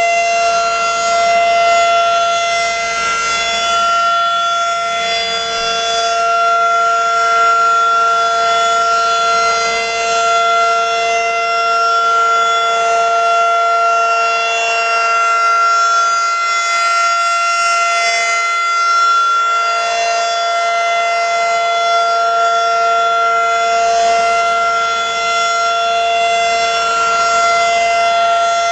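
Federal Signal 2001 rotating outdoor warning siren sounding at full speed, holding one steady, loud tone. A second, lower siren tone runs beneath it.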